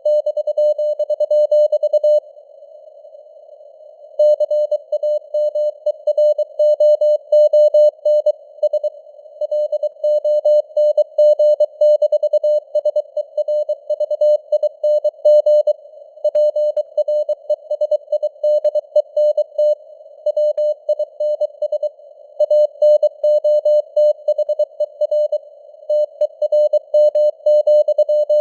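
Computer-generated Morse code (CW) at 23 words per minute: a tone of about 600 Hz keyed in rapid dots and dashes over a narrow band of simulated radio receiver hiss, with the signal strength fading up and down (QSB). The keying breaks off for about two seconds near the start.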